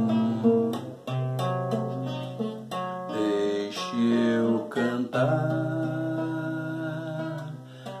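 Acoustic guitar playing an instrumental passage of a song, plucked chords over long-held low notes.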